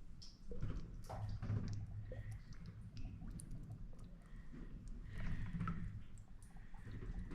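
Shallow water splashing and dripping, with scattered small clicks, as hands grope through a tunnel's stream to catch small fish.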